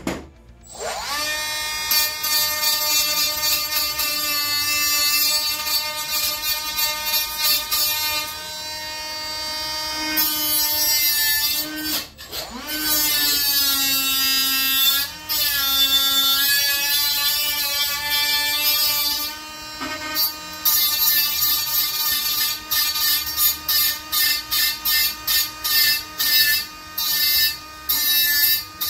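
Small cordless drill whining at high speed as it bores into a wooden wing rib. It spins up right at the start, and its pitch sags and recovers as the bit loads. It stops briefly about twelve seconds in, then over the last several seconds runs in short, quick trigger pulses.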